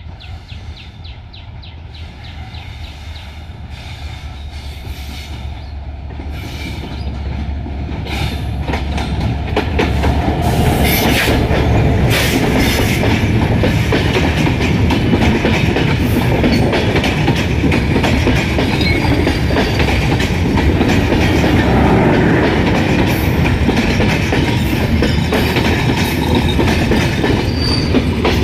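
Diesel-hauled intercity passenger train approaching and then passing close by, with coach wheels clattering over the rail joints. It grows louder over the first ten seconds or so, then stays steady as the coaches run past.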